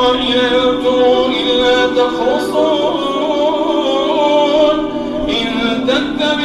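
A man's voice reciting the Quran in a slow, melodic chant, drawing out long held notes that waver in pitch, heard through the imam's microphone.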